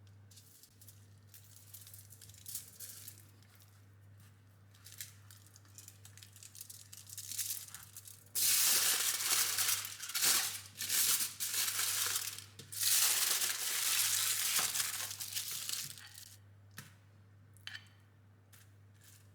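Rustling, tearing and crinkling noise in irregular scratchy bursts, loudest and densest for about eight seconds in the middle, then a few separate clicks near the end.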